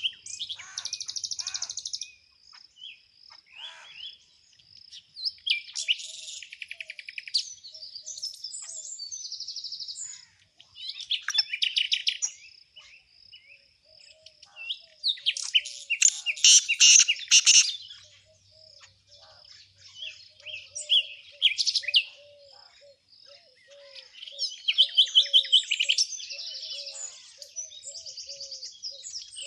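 Small songbirds singing in repeated bursts of high chirps and rapid trills, a new phrase every few seconds, with a fainter, lower series of short notes in the second half.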